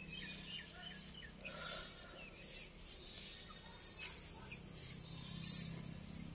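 Rustling and crinkling of aluminium foil and dry, charred banana leaves, in short repeated scrapes, as fingers pull apart a whole grilled fish. A few faint bird chirps come in the first couple of seconds.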